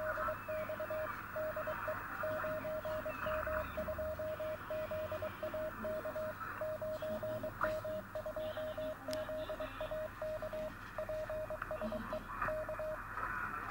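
Morse code (CW) signal on the 10-metre amateur band near 28.033 MHz, heard through a shortwave receiver: a single steady tone keyed on and off in dots and dashes over band hiss.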